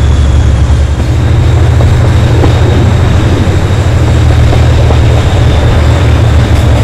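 Class 57 diesel locomotive's GM-built two-stroke V12 engine working hard under power, a loud steady throbbing. Faint rail-joint clicks come in near the end.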